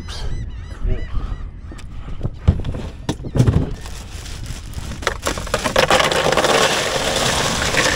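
Repeated honking calls, like a bird's, in the first second or so, then a loud steady rushing noise from about five seconds in.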